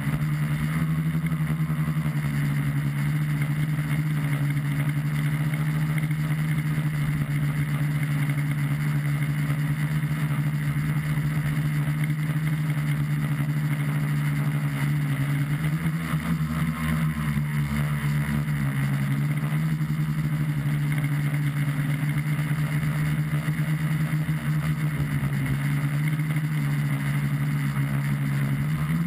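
The electric motors and propellers of a tricopter, heard from a camera mounted on it, give a steady buzzing hum. Its pitch shifts a little a few times as the throttle changes: about a second in, around halfway, and near the end.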